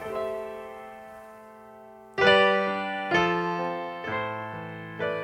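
Background music: keyboard chords, struck about once a second after a slower opening chord, each ringing out and fading.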